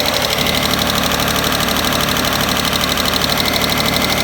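Freshly rebuilt V6 of a 1993 Mitsubishi 3000GT SL idling loudly with an even, rapid pulse. The loudness comes from an exhaust leak, which the owner fears may be at the manifold.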